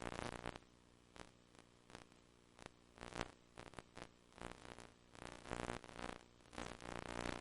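VHS hi-fi audio track buzz: a low buzzing hum with many evenly spaced overtones that swells and fades irregularly, broken by short crackles and static.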